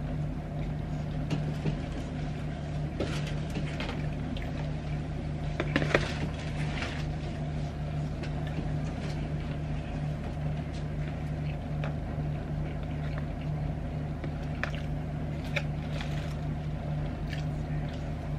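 A steady low hum runs throughout, with scattered light clicks and taps of a plastic fork against a plastic takeaway tray while food is eaten.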